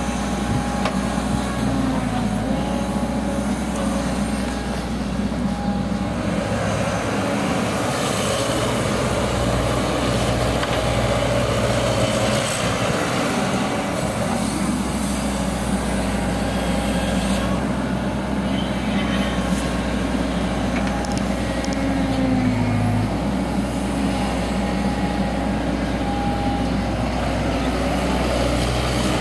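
Caterpillar tracked excavator's diesel engine running steadily under working load, with a whine from the hydraulics whose pitch steps up and down as the boom and bucket dig, lift and dump soil.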